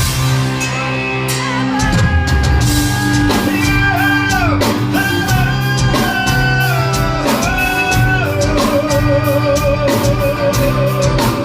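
Live rock band playing an instrumental passage: a lead electric guitar plays long held notes with string bends, settling into one long note with vibrato from about eight seconds in, over a drum kit.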